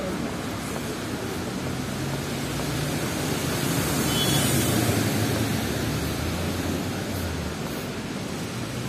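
Street traffic on a wet road: engines running low in slow traffic, with a vehicle's tyre hiss on the wet asphalt swelling up and fading away about four to five seconds in.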